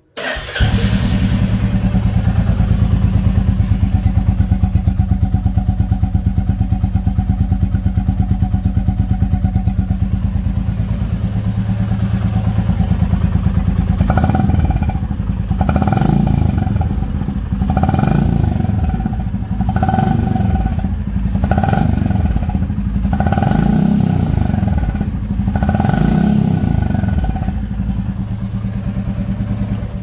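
2022 Royal Enfield Classic 350's 349 cc single-cylinder engine, fitted with an HK Indori aftermarket silencer on the stock bend pipe, starting on the electric starter and idling steadily. About halfway it is revved in a series of about eight short throttle blips, then settles back to idle.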